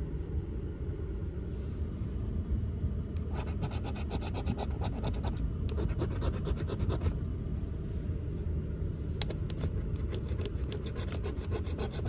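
A coin scraping the coating off a lottery scratch-off ticket in rapid, repeated strokes.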